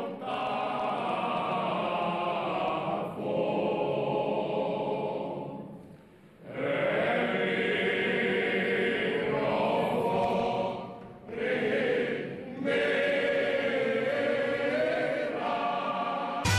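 A group of men singing a church hymn together in held notes, with brief pauses about six and eleven seconds in.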